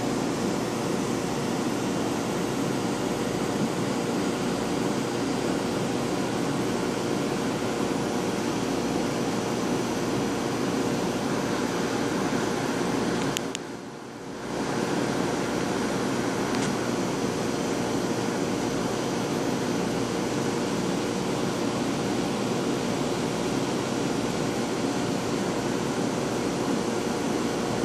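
Steady whirring and rushing of a saltwater reef aquarium's running equipment: pumps, powerheads and moving water. The noise drops briefly about halfway through.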